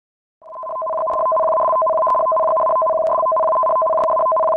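Electronic warning alarm: two steady tones held together, swelling in during the first second, with a faint tick about once a second. It is the alert tone that heralds a tsunami warning.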